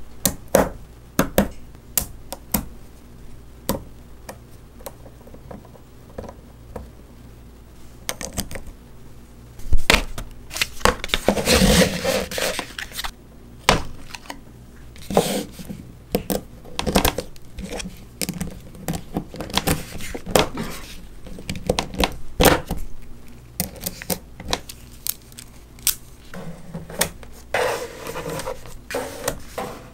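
Small neodymium magnet balls (Neocube) clicking and clacking as sheets and blocks of them are snapped together and pressed into place by hand. The clicks come irregularly, with a longer rattling scrape of balls about twelve seconds in and again near the end.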